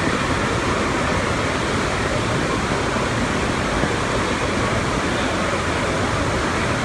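Steady, even rush of running water and general din in an indoor waterpark, a constant noise with no distinct events.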